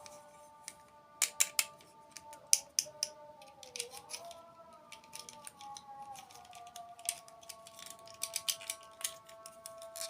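Crisp crunching and clicking of someone biting and chewing crunchy dessert sweets close to the microphone, in irregular sharp bursts, over a soft melody of slowly gliding held notes.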